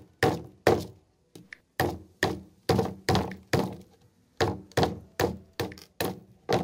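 Batoning: a baton repeatedly striking the spine of a small full-tang neck knife (Wolf 5.56, 8Cr13MoV steel) to drive the blade down through an upright wooden plank. About fourteen sharp thunks, two or three a second, with a brief pause about halfway through.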